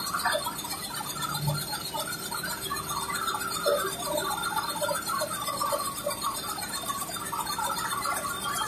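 Richpeace L1500 high-speed multi-needle quilting machine running steadily while stitching a comforter: a fast, continuous chatter with a faint steady hum underneath.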